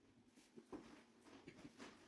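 Faint scattered clicks and light taps, four or so in two seconds, of hands handling parts of an opened microwave oven; otherwise near silence.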